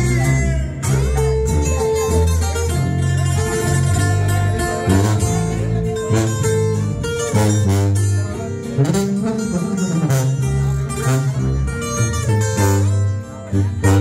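Sierreño music in an instrumental passage: plucked guitars picking many quick notes over a tuba's held bass line, with no singing.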